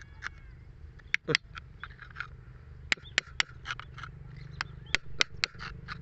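Steel screwdriver tip picking and scraping at rock around an embedded gemstone, giving a string of sharp, irregular clicks and scratches over a low steady rumble.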